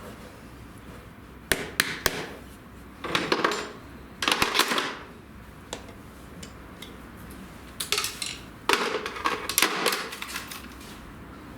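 Farrier's hammer striking a horseshoe's nails, sharp metal-on-metal strikes in several clusters of quick taps with short pauses between.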